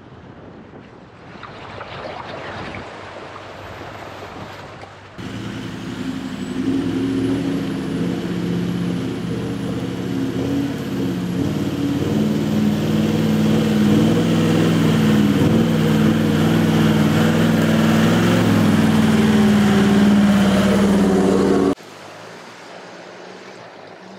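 A 4WD's engine working under load as it drives through a shallow river crossing, its pitch shifting over a steady rushing noise. It comes in suddenly about five seconds in and cuts off abruptly a couple of seconds before the end.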